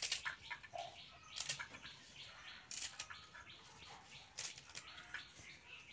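Fresh leafy stems snapped by hand into short pieces: a handful of crisp snaps, roughly a second or so apart.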